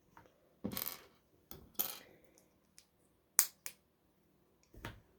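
Small plastic LEGO pieces clattering and clicking as they are picked through and handled, in several short bursts.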